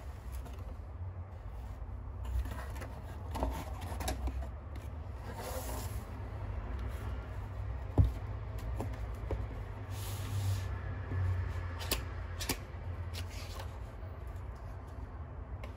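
Apple Watch Ultra's cardboard box and paper wrap being handled: rustling and scraping as the box comes out of the carton and the wrap is opened, with light knocks and one sharp tap about eight seconds in.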